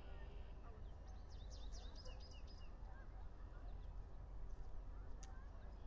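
Outdoor ambience with a steady low rumble of wind and scattered small bird chirps. A quick run of high chirps comes about a second and a half in, and one sharp high note near the end.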